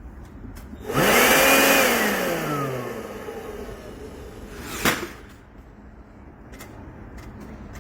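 A DEWALT 20V MAX cordless power tool's motor is triggered briefly, whining up in pitch and then winding down over about two seconds. A sharp click follows about five seconds in.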